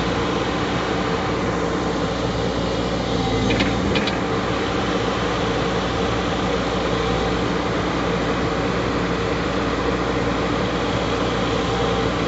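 JCB 140 tracked excavator's diesel engine running steadily under load as the machine works its tracks up onto a lowbed trailer, with a brief faint high squeak about four seconds in.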